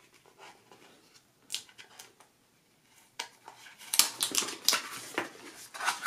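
Hands handling a small cardboard box: a few faint taps, then from about three seconds in a busy run of scraping, sliding and clicking as the lid is worked off the box.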